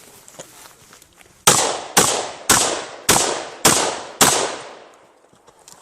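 Six shotgun shots in quick succession, about half a second apart, starting about one and a half seconds in, each followed by a short fading echo.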